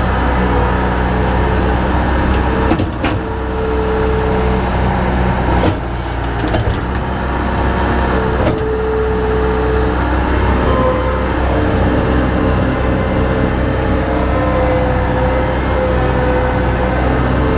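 An engine running steadily with a low drone and a whining note that shifts slightly up and down in pitch, with a few brief clicks about three and six seconds in.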